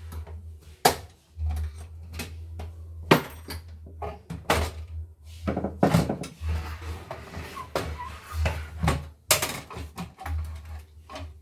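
Hard plastic housing of a computerised embroidery machine being handled and pried off: irregular clacks and knocks, with several sharp, louder clicks.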